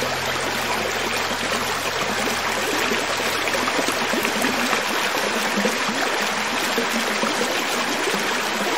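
Creek water flowing over rocks: a steady, even rushing. A low steady hum fades away in the first few seconds.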